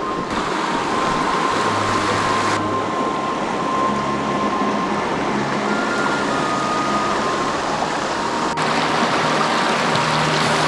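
Rushing water of a mountain brook, a steady loud rush of heavy flow.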